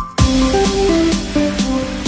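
Background electronic music with a steady beat and a simple melody; it drops out briefly just after the start, then comes straight back.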